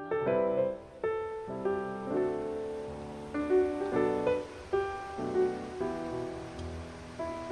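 Background piano music: a melody of separate notes over held chords.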